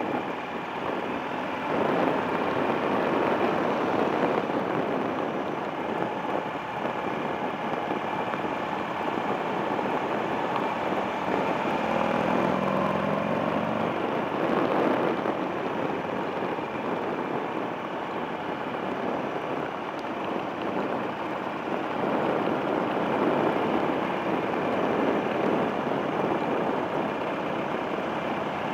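Buell XB9SX's air-cooled V-twin running under way, mostly covered by a steady rush of wind and road noise on a handlebar-mounted camera microphone. The engine pitch rises briefly about halfway through.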